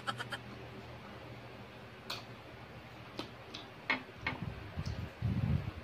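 Close-up mouth sounds of eating unripe green mango: the end of a quick run of crunchy chewing at the start, then scattered wet clicks and smacks of chewing, with a few low, muffled sounds near the end.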